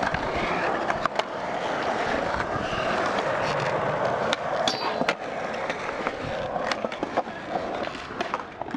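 Skateboard wheels rolling on smooth concrete with a steady roar, broken again and again by sharp clacks of boards and trucks hitting the ground.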